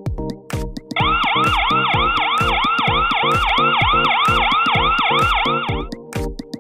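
Electronic dance music with a steady kick-drum beat, overlaid from about a second in with a loud siren sound warbling rapidly up and down, about three and a half sweeps a second, which stops shortly before the end.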